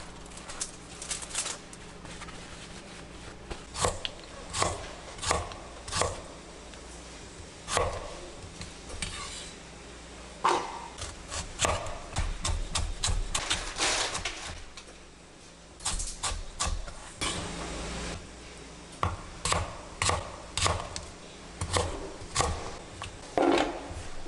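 Chef's knife slicing aromatic vegetables and shallots on a cutting board: irregular knocks of the blade against the board in short runs, with brief pauses between runs.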